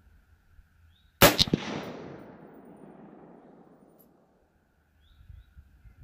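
A single rifle shot from an Anderson AM-15 carbine in 7.62x39, about a second in: a sharp crack, a second crack a moment later, then an echo that fades out over about three seconds.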